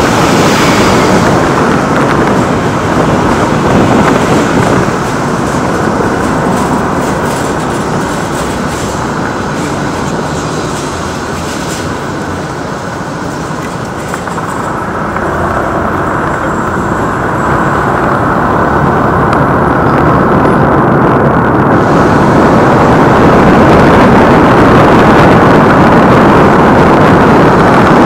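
Steady roar of road and engine noise from a moving minibus. It eases off in the middle and grows louder again toward the end.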